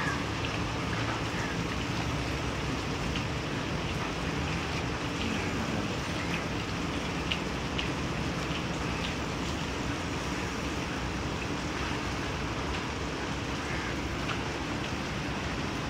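Steady hiss of light rain falling on the pond and the concrete bank, with faint scattered drop ticks.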